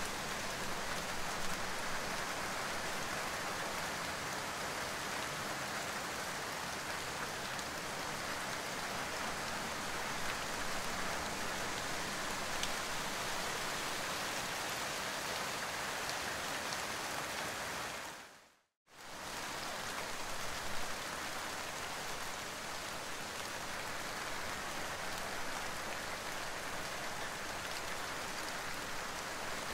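Steady rain falling, an even hiss of many drops. About two-thirds of the way through it briefly fades out to silence and straight back in.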